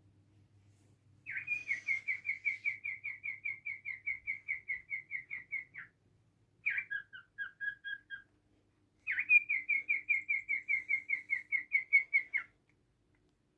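A pet bird singing: three whistled phrases. The first and last are fast runs of repeated, slightly falling notes, about four or five a second, each lasting several seconds. The shorter middle phrase steps between two pitches.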